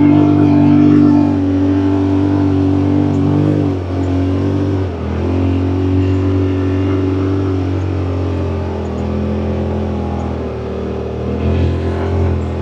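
A side-by-side UTV's engine running steadily while driving, heard from on board; its pitch dips and changes briefly about four seconds in, then holds steady again.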